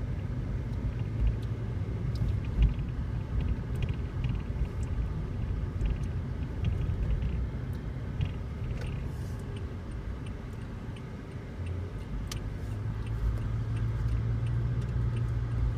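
Car interior rumble while driving slowly: a steady low mix of engine and tyre noise heard inside the cabin. It dips briefly about ten seconds in, then settles into a stronger, steady low hum for the last few seconds.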